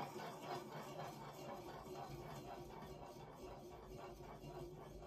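Marbles rolling and clattering down the plastic tracks and chutes of a block-built marble run, a quiet continuous rattle of small clicks that slowly fades.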